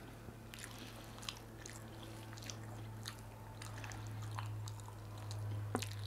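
Faint close-miked eating: scattered wet clicks and smacks of someone chewing food, over a steady low hum.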